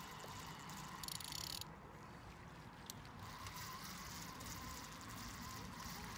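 Fishing reel being wound in, with a faint quick ticking from the reel for about half a second about a second in and a single tick near three seconds. The line is dragging a clump of weed, which makes the reeling hard work.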